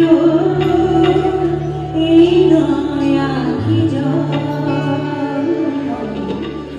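Music with a voice singing long held notes over a steady low accompaniment.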